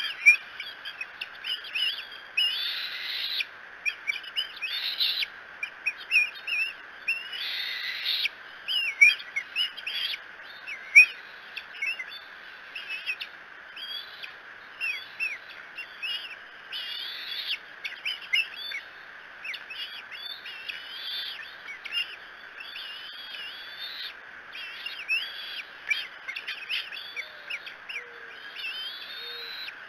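Bald eaglets giving a steady run of high-pitched chirping, whistling calls with falling and rising pitch glides, some louder and harsher near the start and about eight seconds in: food-begging calls while an adult eagle feeds on a freshly delivered fish.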